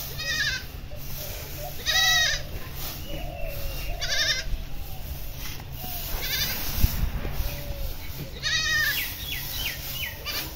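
An animal calling over and over: short, wavering calls about every two seconds, with a few brief high chirps near the end.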